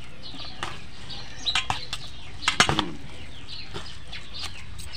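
Spoon and fork clinking and scraping against a stainless-steel bowl while mixing a flaked fish and egg mixture, with a few sharp clinks about one and a half and two and a half seconds in. Birds chirp throughout in the background.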